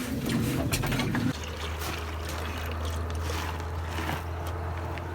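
Coolant pouring and trickling out of the Case 590 Super L backhoe's cooling system as a hose is pulled off at its low point. About a second in, a steady low hum sets in under it.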